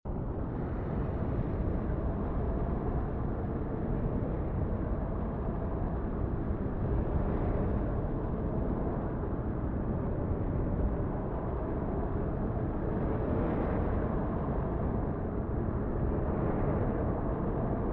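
Storm gusts of a severe thunderstorm buffeting the microphone: a steady, deep rush of wind noise.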